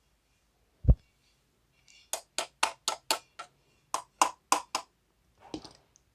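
Exhaust fan parts handled during reassembly: a dull thump, then a quick run of about ten sharp clicks or taps, then a short scraping rustle near the end.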